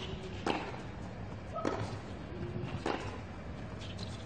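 Tennis ball struck by rackets in a baseline rally on a hard court, three crisp hits about a second apart, over a steady low stadium hum.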